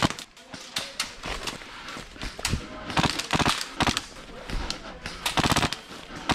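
Airsoft guns firing: a sharp crack at the start, then two quick strings of rapid shots, about three seconds in and again about five and a half seconds in.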